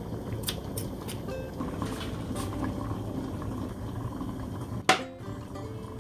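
Food cooking on the stove, a steady bubbling with scattered crackles, and one sharp click about five seconds in.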